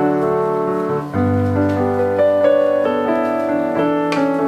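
Background piano music, a melody of held notes changing every half second or so.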